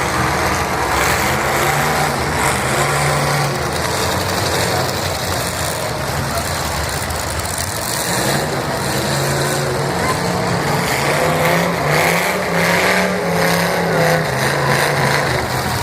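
Demolition derby car engines running and revving up and down unevenly, with voices underneath.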